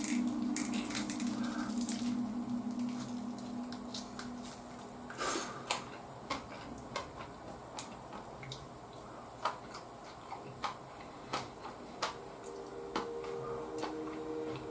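Close eating sounds of a person biting and chewing bone-in chicken: scattered short clicks and smacks, one or two a second, with a stronger one about five seconds in. Faint held notes of background music are heard at the start and again near the end.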